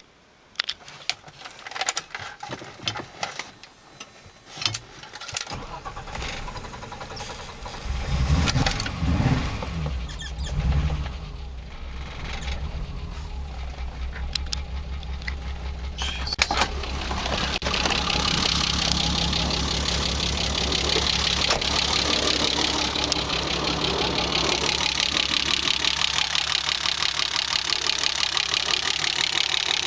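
A few sharp clicks and knocks, then a BMW E30's M20B25 2.5-litre straight-six cranks and catches about eight seconds in, surging briefly before settling into an idle with an even pulse that turns louder and hissier from about seventeen seconds. It is running rough after newly installed injectors and a new chip/ECU.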